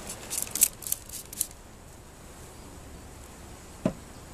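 Handling at a wooden top bar hive: a quick run of short, scratchy scrapes and rustles in the first second and a half, then a single knock near the end.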